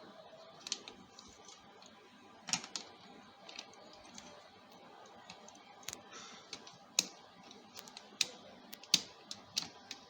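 Irregular sharp clicks and taps of cable connectors being handled and plugged into a hard disk's ports, with the loudest clicks coming close together in the last few seconds.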